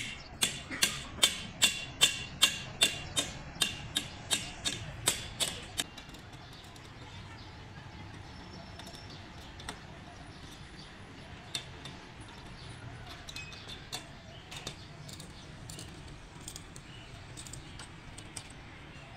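Hammer striking a steel fence post as it is driven in on top of a concrete wall: a steady run of sharp, ringing metallic blows, about two and a half a second, that stops about six seconds in. After that there are only a few faint scattered taps over a low background hum.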